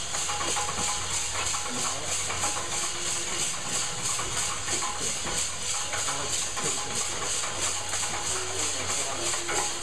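Coffee beans tumbling in the rotating steel drum of a small gasifier-fired coffee roaster, an even rattling shake about four times a second, over a steady low hum.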